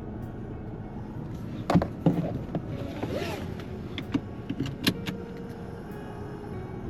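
Car with a steady low rumble, with several sharp clicks and knocks about two seconds in and again near five seconds, and a short hiss between them.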